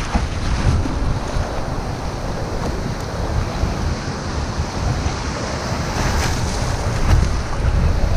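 Breaking surf and foaming whitewater in the shore break, with wind buffeting the microphone as a steady low rumble.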